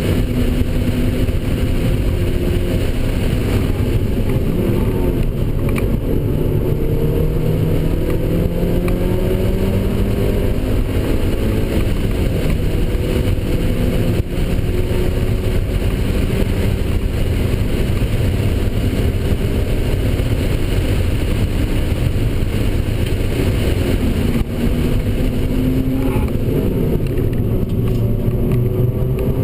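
A Mazda NC Miata's four-cylinder engine, heard from inside the cabin, driven hard on track. Its pitch climbs and falls repeatedly through gears and corners, with a falling pitch near the end as it slows, over constant road noise.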